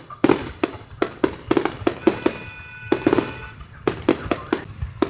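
Aerial fireworks bursting in quick, irregular bangs and crackles, with a steady high tone for about a second and a half in the middle.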